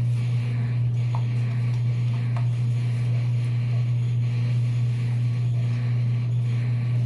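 A steady low-pitched hum at an even level, with a few faint clicks.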